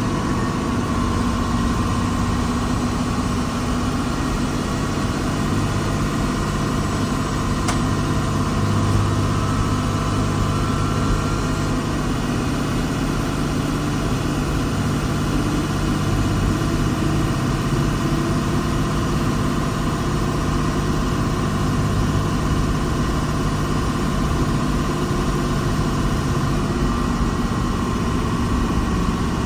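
Earth-moving machine's diesel engine running steadily at an even pace.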